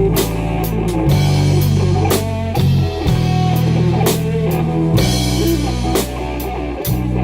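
A rock band playing: a drum kit with frequent cymbal hits over guitar and sustained low bass notes.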